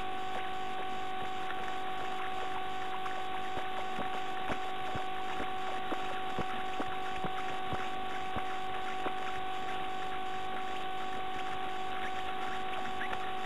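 Steady electrical hum and hiss from a nest-box camera's audio line, with scattered faint clicks and scratches from the brooding bird shifting in the nest.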